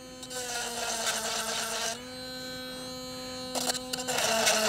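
Oregon Sure Sharp electric chainsaw sharpener grinding the cutter teeth of a chainsaw chain: its small motor hums steadily while the stone rasps on the steel. The rasping eases and the motor pitch rises slightly about two seconds in. A few clicks come near the end, then the rasping returns with the motor pitch a little lower.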